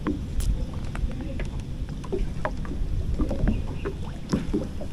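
Wind rumbling on the microphone in a small wooden boat on open water, with scattered light clicks and knocks.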